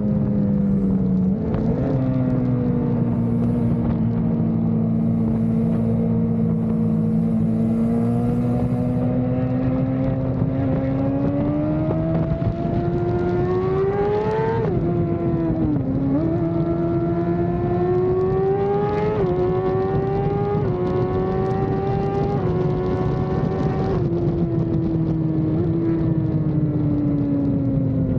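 Inline-four superbike engine running on the road, its pitch climbing steadily as it accelerates, dipping sharply about halfway through, then climbing again in short steps before falling away near the end.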